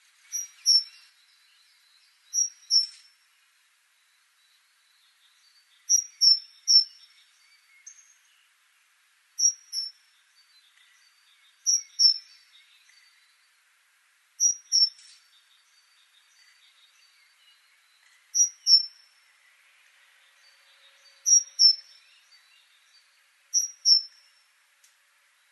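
Great tit singing: short, high, sharp notes in pairs, one pair every two to three seconds, with one group of three, over a faint background hiss.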